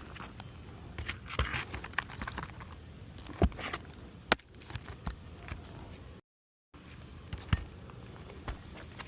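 Asphalt roof shingles being pried up and handled: scraping and crackling, with a few sharp clicks and knocks. The audio drops out briefly past the middle.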